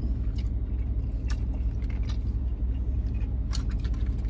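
Steady low rumble of a car idling, heard inside the cabin, with a few faint short clicks and rustles.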